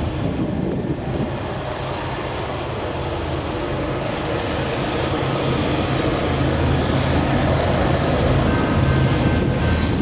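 Five-unit lashup of Union Pacific diesel-electric freight locomotives approaching from a distance: a low, steady engine drone that grows gradually louder.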